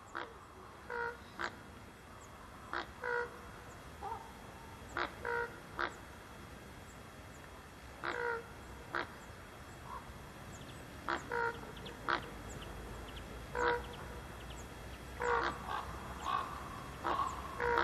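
Ravens calling: a run of short, clearly pitched calls, irregularly spaced about a second apart.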